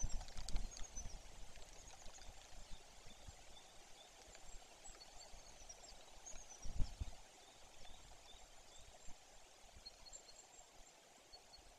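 Quiet forest ambience: scattered short, high chirps of small songbirds over a faint steady hiss, with low rumbles near the start and a stronger one a little before seven seconds.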